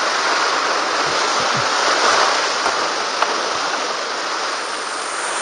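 Whitewater rapids rushing and churning right around a kayak, a loud, steady noise of turbulent creek water with faint splashes, sped up to double speed.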